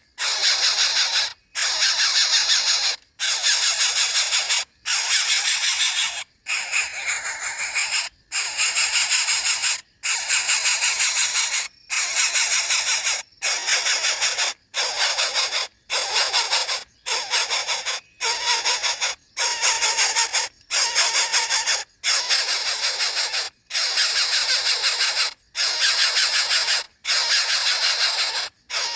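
A nestling bird's harsh, hissing begging calls, repeated over and over, each rasp lasting a second or so and broken by short pauses.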